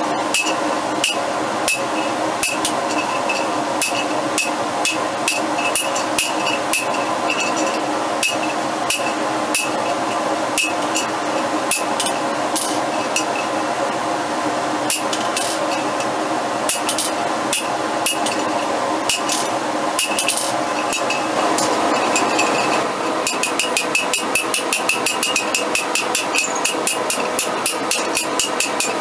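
Hand hammer striking the top die of a blacksmith guillotine tool, forging a red-hot steel bar clamped between the dies. The blows come irregularly, about one or two a second, then in the last few seconds fall into a fast, steady rhythm. A steady hum runs underneath.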